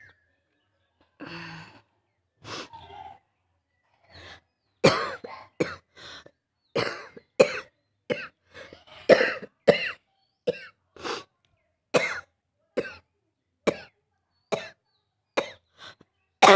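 A person coughing repeatedly: a couple of softer throat-clearing sounds, then a long run of about twenty short, sharp coughs, one every half second or so, ending in a louder fit of coughing.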